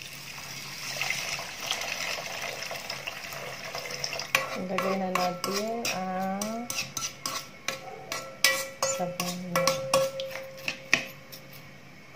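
Chicken broth poured from a jug onto rice in a rice cooker's inner pot, a steady pouring rush, then a spoon stirring the rice and broth and clicking and knocking against the metal pot in quick, uneven strokes.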